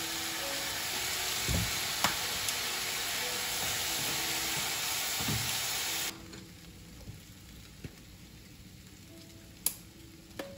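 Sliced fish cake, carrot and onion sizzling loudly in a hot non-stick frying pan as a sauce is poured in. Wooden chopsticks knock against the pan a few times. About six seconds in, the sizzle drops suddenly to a faint one.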